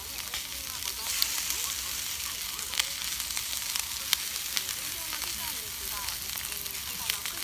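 Chicken frying in a bushcraft campfire frying pan: a steady sizzle with occasional sharp pops.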